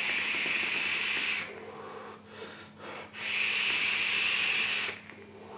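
Two long hissing draws on a Claymore RDA by Yacht Vape, air rushing through its tight, restrictive direct-lung airflow channels; the first ends about a second and a half in, the second runs from about three to five seconds in, with a quieter breath between them.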